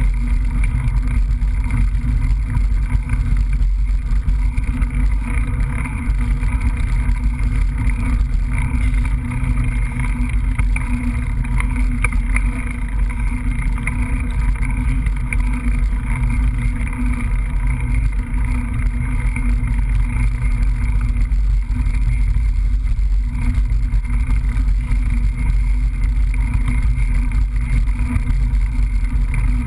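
Steady, loud rumbling of a mountain bike ride picked up by a GoPro Hero camera: wind and trail vibration on the camera housing, unbroken throughout.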